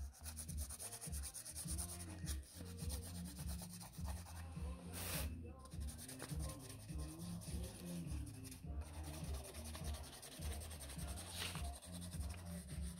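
Pencil rubbed back and forth on sketchbook paper over a leaf beneath the page, making a rubbing: a steady scratchy shading sound, broken by a couple of brief pauses.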